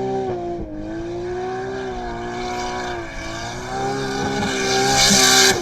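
Car engine running at high, steady revs: a sustained high whine that wavers a little in pitch and grows louder toward the end.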